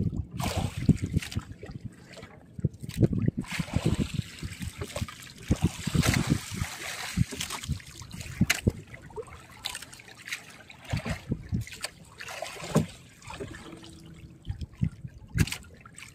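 Sea water splashing and trickling around a small fishing boat, with irregular knocks and thuds.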